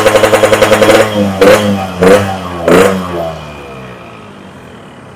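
Yamaha RX-King 135 two-stroke single with a Boban C33 aftermarket exhaust revved at standstill: held at high revs for about a second, then blipped three times, each blip falling away, before dropping to a quiet idle. Heard through a noise-cancelling microphone that cuts much of the sound. The owner hears it as soft and crisp, with no sign of roughness.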